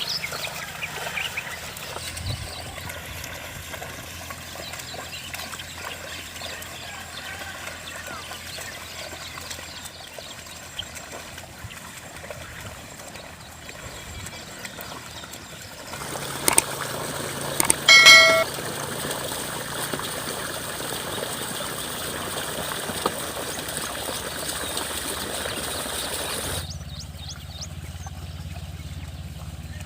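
Wet paddy field being ploughed with a bull, with water trickling and splashing. The background changes abruptly twice, and about two-thirds of the way through there is one short pitched call.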